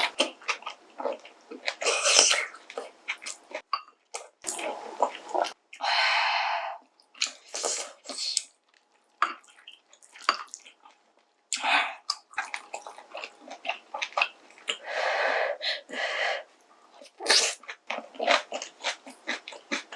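Close-up eating sounds of pork kimchi stew with ramen noodles: slurps of about a second each, several times over, between wet chewing and short clicks of utensils.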